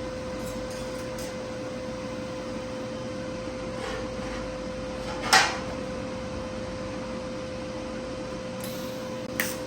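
Steady electrical hum and hiss with a constant whining tone, typical of a WeldPro TIG 200 running during TIG welding of stainless steel. A sharp knock comes about five seconds in and a smaller one near the end.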